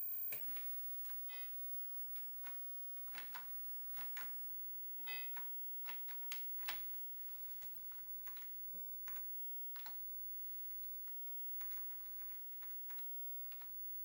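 Keystrokes clicking on an Apple IIgs keyboard: an irregular run of key clicks, loudest and densest between about three and seven seconds in, then lighter taps. There are two short electronic beeps from the computer, about a second in and about five seconds in.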